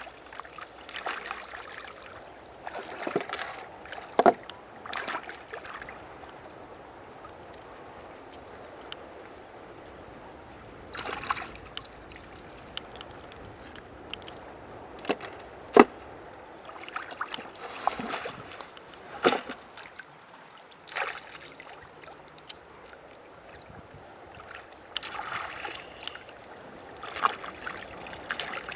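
Water sloshing and splashing with scattered sharp knocks, the loudest about 4 and 16 seconds in, over a steady running-water background.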